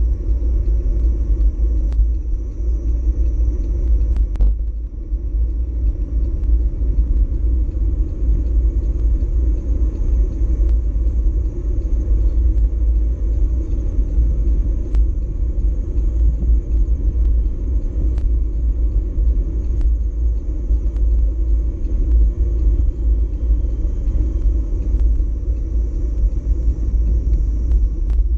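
Wind buffeting the microphone of an action camera on a moving bicycle: a loud, steady low rumble with a faint steady high hiss above it and a few faint clicks.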